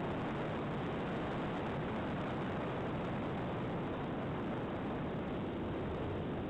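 Steady, even rush of wind over the onboard camera of a Reely Wild Hawk RC glider in flight, with no motor whine.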